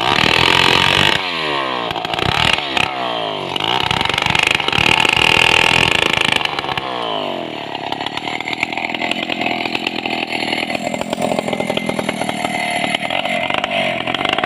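Stihl two-stroke chainsaw cutting a large sengon log: the engine pitch drops several times in the first seven seconds as the chain loads up in the wood, then it runs steadily under load.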